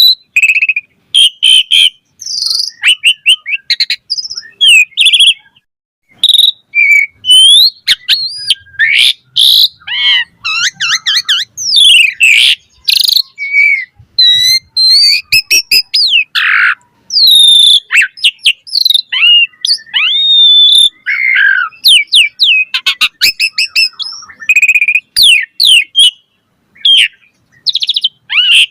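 Asian pied starling (jalak suren) singing a long, varied song: short phrases of whistles, rising and falling glides, fast trills and clicks, one after another with brief pauses between.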